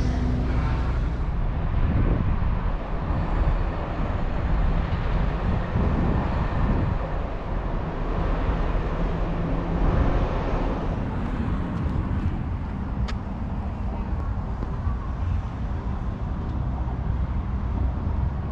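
Outdoor street ambience: wind rumbling on the microphone over the steady noise of road traffic.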